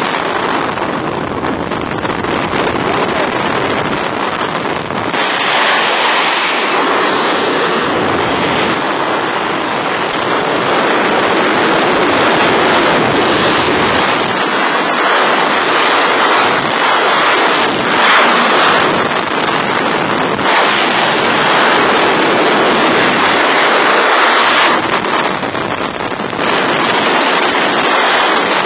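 Aircraft engine and slipstream noise at the open jump door, then, about five seconds in, loud freefall wind rushing over a helmet-mounted camera's microphone, steady to the end.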